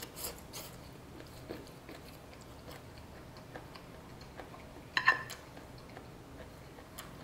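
Close-up mouth sounds of someone chewing a forkful of stir-fried noodles, meat and broccoli, with small wet clicks. About five seconds in there is a brief, louder clink with a ringing tone, from the fork on the plate.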